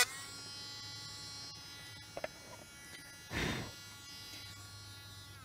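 Dremel Stylo pen-style rotary tool running at a steady speed with a 5 mm carving burr, re-cutting the curved edge of a turned wooden bowl: a steady motor whine, with a brief noisy burst about three and a half seconds in. The tool begins to wind down at the very end.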